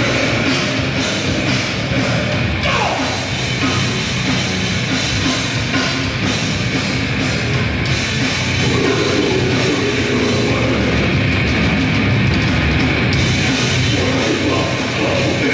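Grindcore band playing live, loud and distorted: heavily distorted guitar and bass over fast drumming, with harsh shouted vocals joining about nine seconds in.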